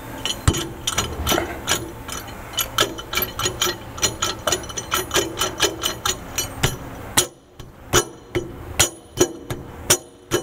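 Prater MM5 Megamill's steel hammer-mill rotor clinking and knocking, metal on metal, as it is wiggled and pushed by hand onto its shaft. Irregular sharp clinks, several a second, each with a short ring.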